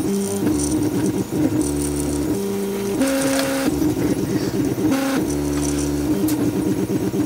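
3D printer's stepper motors whining as the print head and bed move, the tone jumping to a new pitch every half second or so as each move changes speed and direction.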